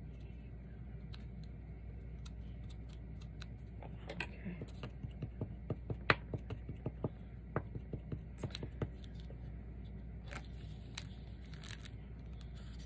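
Small sharp clicks and taps, about three or four a second, as fingers press and smooth a glued paper picture down onto a fabric-covered frame; they start about four seconds in and stop around nine, followed by brief rustling of paper and fabric.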